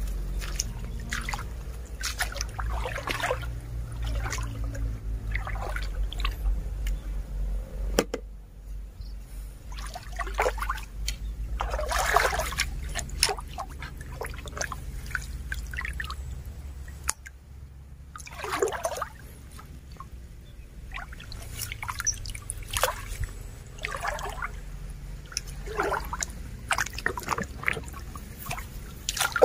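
Shallow muddy stream water splashing and gurgling as a bamboo pole is pushed and stirred through it, in irregular small splashes and drips.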